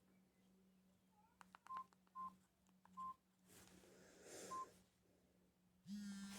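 Samsung E1200 keypad tones: four short single-pitch beeps at uneven intervals as the phone's keys are pressed, with a few faint clicks and a faint steady low hum underneath.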